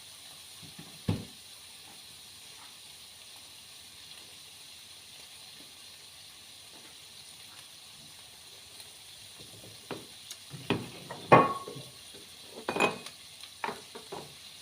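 A pan sizzling softly with frying food, bacon cooked in red wine, with one knock about a second in. From about ten seconds on, several sharp clinks and knocks of kitchenware being handled.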